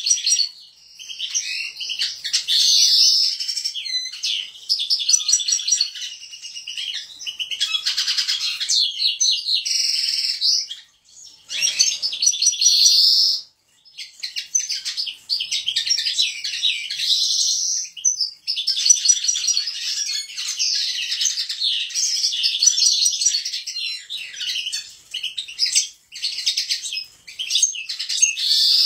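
Caged European goldfinches singing: long runs of rapid, high twittering and trills, broken by a few short pauses.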